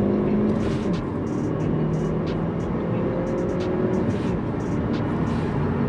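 Cabin sound of a 2017 Ford Focus ST being driven: its 2.0-litre turbocharged four-cylinder engine running under way over road noise. The engine note drops about a second in as a gear is changed.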